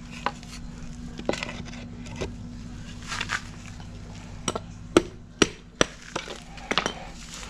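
A series of sharp knocks and taps, about a dozen, irregularly spaced and loudest from about four and a half seconds in, over a steady low hum.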